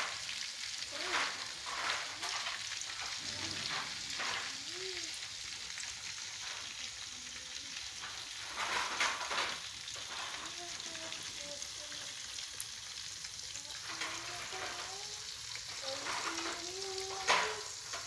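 Chicken pieces frying in hot oil in a metal wok: a steady sizzle, with louder crackles and spatters a few times, most sharply near the end.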